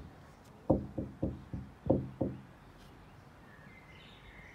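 About six knocks in quick succession over a second and a half: knuckles rapping on the carriage window or its wooden frame.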